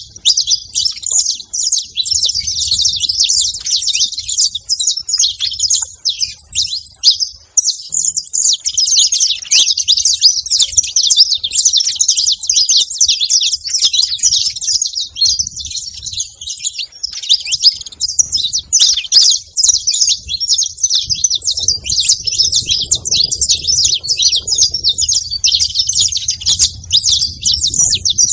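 A group of saffron finches chirping together, many short high calls overlapping in a constant chatter, thinning briefly about seven seconds in.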